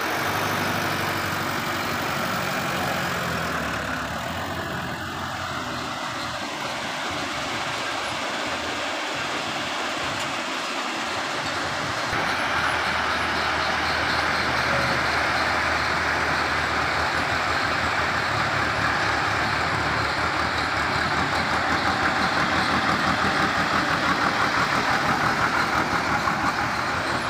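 Diesel engines running steadily: a truck's engine at first, then a JCB 2DX backhoe loader's engine, louder from about halfway through.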